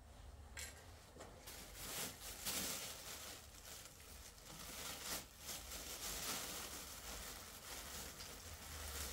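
Thin plastic grocery bags crinkling and rustling as they are handled and opened, an irregular crackle starting about half a second in.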